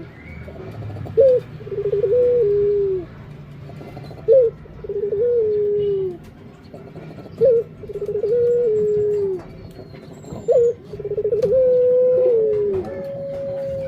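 Barbary dove (puter) cooing: about four repeated coos roughly three seconds apart, each a short rising note, a quick rolling run of pulses, then a long held note that drops at its end.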